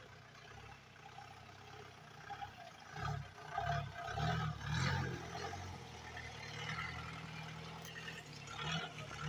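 Mahindra jeep's engine pulling up a rocky forest track. It surges in uneven bursts a few seconds in, then runs on more steadily under load.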